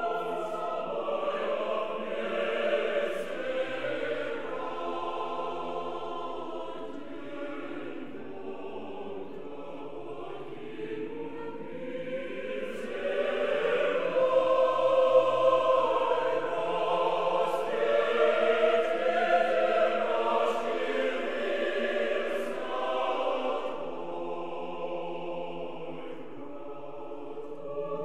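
A choir singing slow, sustained lines that swell louder in the middle and ease off near the end.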